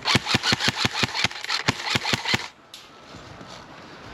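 Airsoft gun firing a rapid string of about fifteen shots at roughly six a second, stopping about two and a half seconds in.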